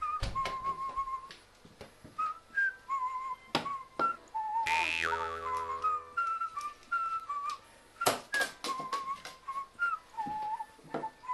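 Background music carried by a whistled melody, with scattered sharp clicks and a brief loud falling sweep about five seconds in.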